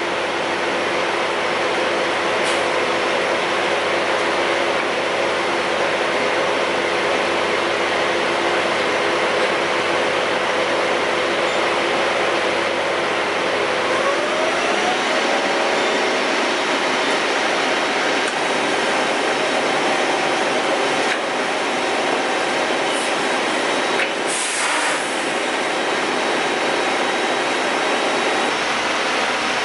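Semi-truck diesel engine running steadily, its pitch stepping up to a faster speed about halfway through.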